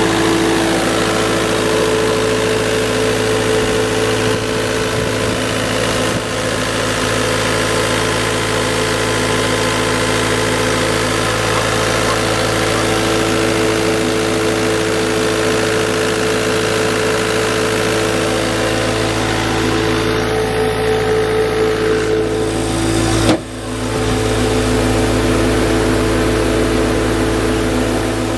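Diesel engine of a CAT 279C compact track loader running steadily, with a sudden brief break about three-quarters of the way through before it carries on.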